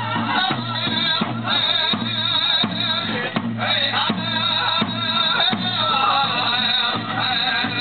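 Powwow drum group singing a grass dance song over a steady unison beat on the big drum, about two beats a second, the voices wavering.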